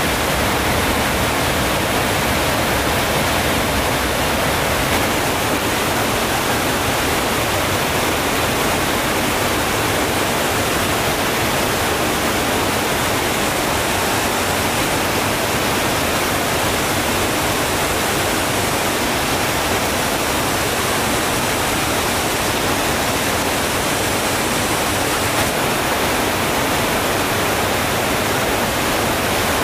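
Flowing water rushing steadily, like a stream or small waterfall, an even hiss with no breaks or distinct events.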